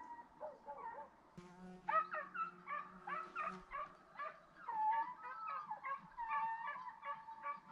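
A pack of hunting dogs giving tongue: many overlapping yelps and yips, the cry of hounds running a wild boar's trail in a drive hunt. A low steady hum sounds for about two seconds, starting a second and a half in.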